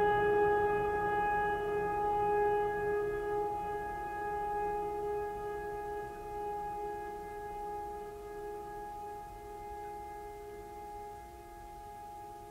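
Background music: a sustained, droning chord of several held notes that slowly fades away.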